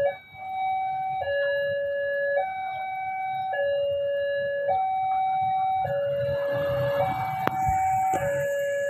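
Railway level-crossing warning alarm sounding two alternating electronic tones, each held about a second, which signals that a train is approaching.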